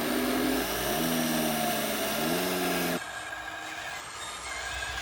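Electric drive motors and gearing of a radio-controlled construction model whining. The pitch drops about a second in and rises again as the throttle changes, then cuts off suddenly about three seconds in, leaving a quieter scraping noise.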